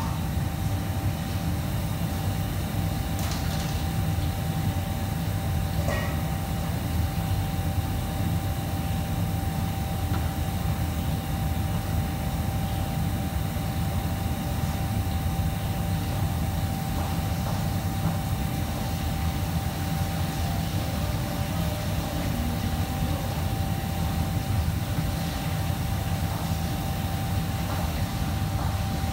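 Steady low rumble of kitchen fans with a constant faint hum, and a few light clinks of utensils and metal bowls, around 3 and 6 seconds in.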